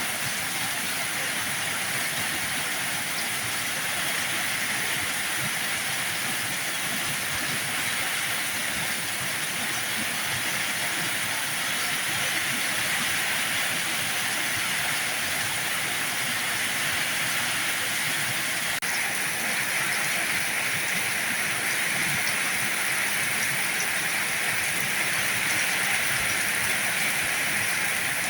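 Heavy rain falling in a steady hiss, with no separate drops or pauses standing out.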